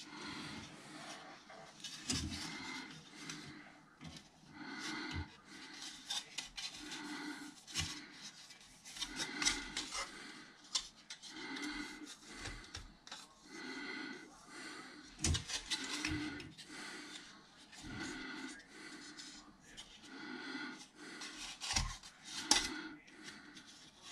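Hard plastic model-kit parts being handled: small clicks and rubbing as the polystyrene truck body is turned in the fingers and knocks against the sprues, over soft, regular breathing about once a second.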